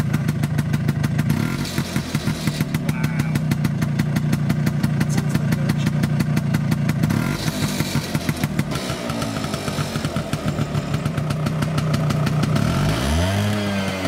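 Vespa PX 125 two-stroke engine idling with even exhaust pulses, heard first through a Polini box exhaust and, about seven seconds in, through the original PX exhaust. Near the end the throttle is blipped once and the revs rise and fall.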